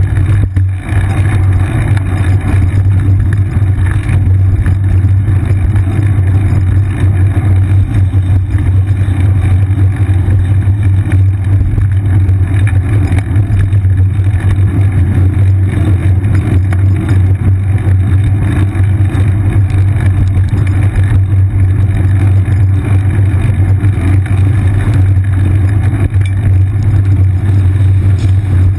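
Loud, steady low rumble of road vibration and wind picked up by a seat-mounted GoPro Hero 2 in its housing while the bicycle rides through wet city traffic.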